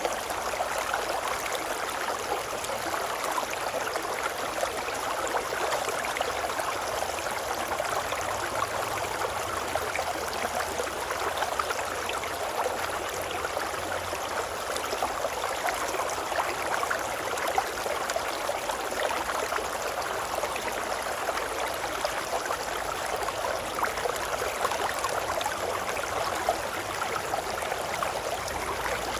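Shallow river babbling steadily: a continuous, even rush of running water with fine splashing and gurgling.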